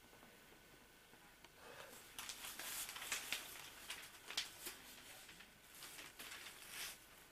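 Faint rustling and scattered clicks from a camcorder being handled and carried through a small quiet room. The noises start about a second and a half in and die away near the end.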